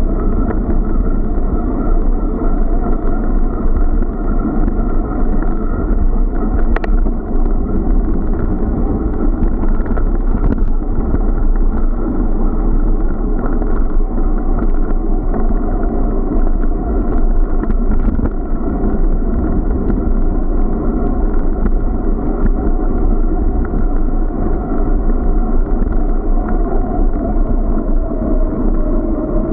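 Steady rumble and wind buffeting picked up by a bicycle-mounted action camera (Hawkeye Firefly 8S) while riding along a paved path, with a few faint clicks along the way.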